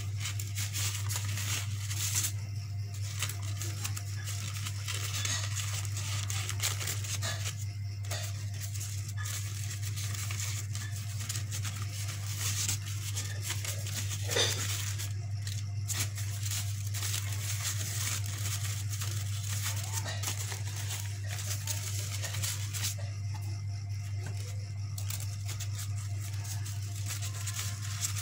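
Crepe paper crinkling and rustling as it is rolled and shaped by hand, with small crackles and one sharper crackle about halfway through, over a steady low hum.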